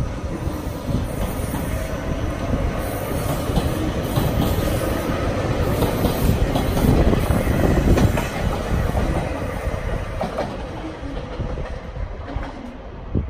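JR Hokkaido electric commuter train running past on a nearby track, its wheels clattering over the rail joints and points. It is loudest just past halfway, then fades as the last car goes by.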